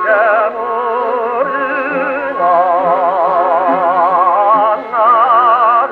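A 1932 Victor 78 rpm record played acoustically on an EMG Mk Xb horn gramophone with a thorn needle. A tenor sings long held notes with wide vibrato over an orchestra. The sound is thin and has no highs.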